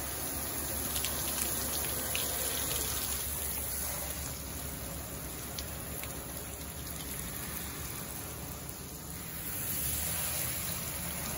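Spray of water hissing steadily and spattering against a car's body panels, wheel and glass, running off onto wet concrete; a little louder near the end.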